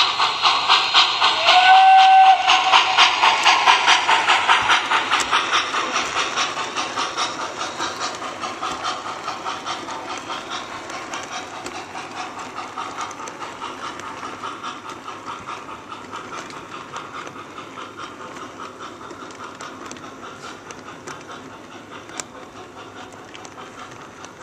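Model steam locomotive's electronic sound system chuffing in a steady rhythm, with one short whistle toot about two seconds in. The chuffing fades as the engine pulls away, and the passing cars' wheels click over the track.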